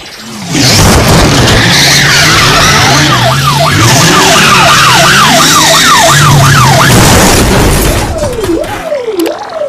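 Dubbed-in car sound effects: a loud car engine revving with skidding tyres. From about three seconds in, a police siren sweeps quickly up and down over it, and near the end it changes to a slower, lower wail.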